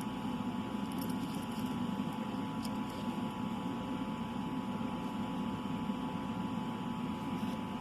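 Steady low hum, like a motor or fan, with a few faint light ticks about a second in and near three seconds.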